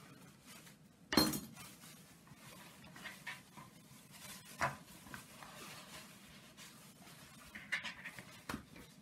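Thin plastic bag rustling and crinkling as it is pulled over a plastic mixing bowl and pressed down around the rim, with a sharp knock about a second in and a few lighter taps later.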